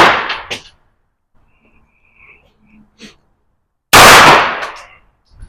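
Gunshots at a shooting range: the echoing tail of one shot fades out at the start, then a second loud shot about four seconds in rings out for about a second.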